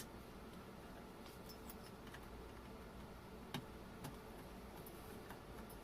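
A few faint clicks and taps, the clearest two about half a second apart a little past the middle, from plastic parts of a Stihl handheld blower being handled and fitted during reassembly, over a low steady hum.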